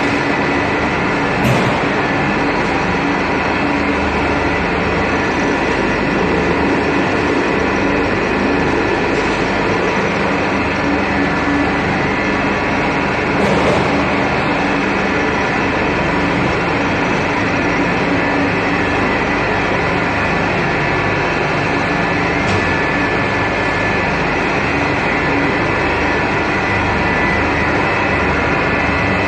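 Animal-fat rendering plant machinery running: a loud, steady mechanical din with a constant hum and whine from the motors. Two short knocks break through, one near the start and one about halfway.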